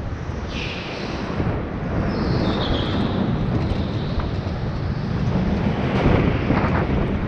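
Go-kart driving on an indoor track: a continuous rumble of the kart running, with wind buffeting the onboard microphone. A few short high squeals come in near the start and again a couple of seconds in, and the noise swells briefly near the end.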